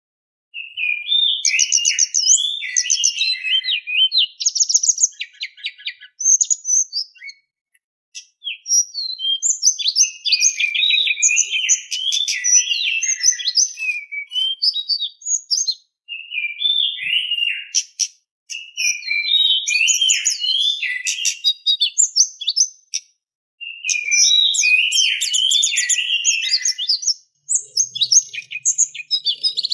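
Tledekan gunung singing: rapid, varied phrases of high chirps and warbling notes in runs of several seconds, with short pauses between them.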